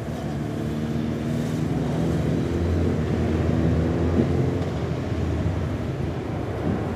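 Police motorcycle engines running as the bikes ride past at low speed, a steady engine drone that is loudest about three to four seconds in, then gives way to general street and traffic noise.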